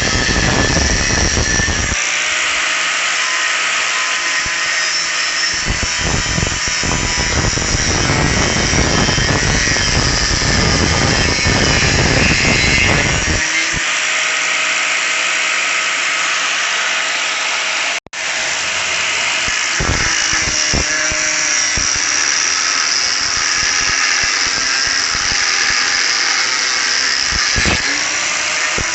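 A power tool cutting through a steel motor-mount bracket: a loud, continuous rasping noise over a steady high whine, swelling and easing as the cut bites. The sound drops out for an instant about eighteen seconds in.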